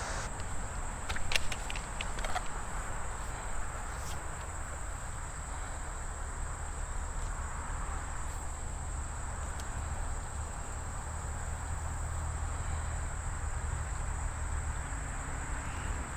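Steady high-pitched insect chorus, like crickets trilling, over a low, even rumble, with a few light clicks about one to two seconds in.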